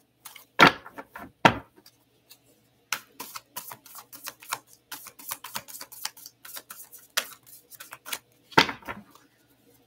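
A tarot deck being shuffled by hand: a quick run of soft card clicks through the middle, with two thumps about a second in and another near the end.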